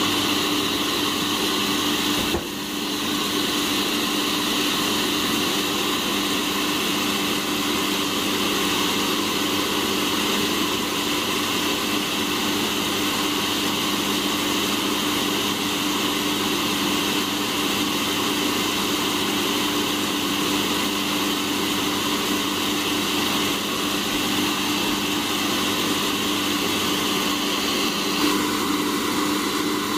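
Cafemasy hot-air coffee roaster running mid-roast: its fan blows a steady whir with a constant hum underneath as the beans swirl in the glass roasting chamber.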